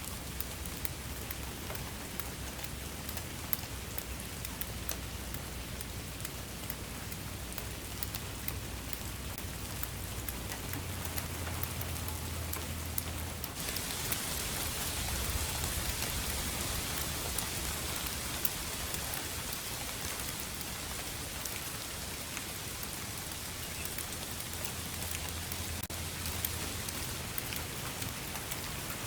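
Steady rain falling, with many single drops tapping through the hiss. About halfway through, the hiss abruptly turns brighter and a little louder.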